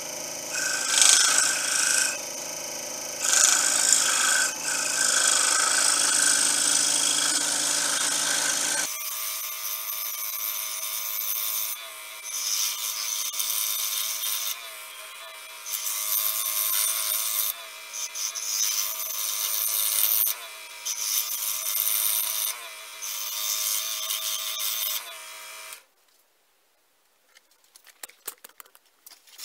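Scroll saw cutting a small wooden blank, the cutting noise coming and going in stretches of a few seconds. It stops abruptly a few seconds before the end, leaving only a few faint clicks.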